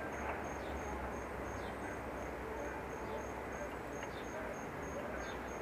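Cricket chirping steadily, about four high-pitched chirps a second, over a low steady background hiss.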